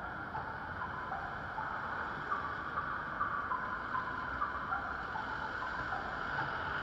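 Street noise at a busy city crossing: steady traffic hum with vehicles passing over the wet road close by, and brief high tones here and there.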